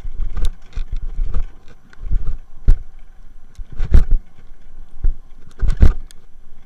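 A bicycle ridden fast over a rough dirt track, with a low rumble and irregular thumps and rattles as the bike jolts over bumps.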